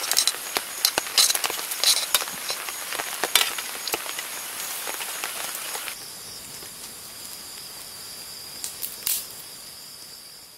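Food sizzling in a camp pan, with many sharp crackles and clicks. About six seconds in, this changes suddenly to a steady high insect trill over the faint crackle of a campfire.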